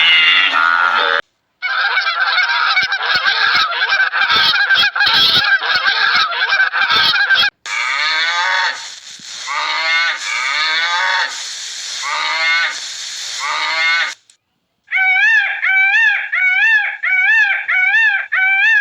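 Geese honking, in several short bursts separated by brief breaks: first a dense overlapping flock chorus, then looser calls, and near the end a run of evenly spaced honks at about two a second.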